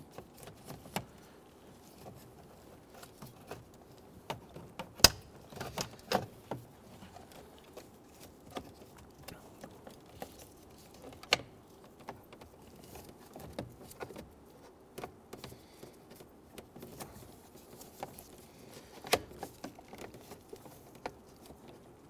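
Scattered light clicks, taps and rustles of plastic and wiring as a turn signal combination lever is fed up into a steering column and fitted into place, with a sharper knock about five seconds in.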